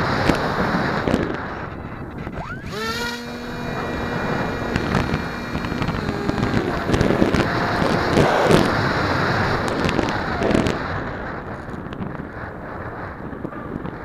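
Wind rushing over the microphone of the #808 keychain camera mounted on a Multiplex Easy Star RC plane in flight. About three seconds in, the plane's brushless electric motor whines up sharply in pitch and then holds a steady note for a few seconds.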